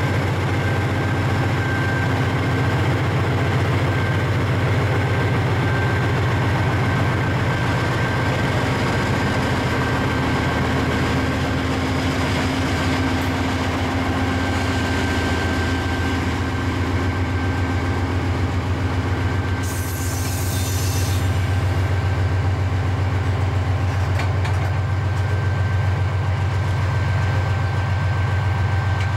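Diesel freight locomotive running steadily: a low engine rumble with a constant high whine, and a brief hiss about two-thirds of the way through.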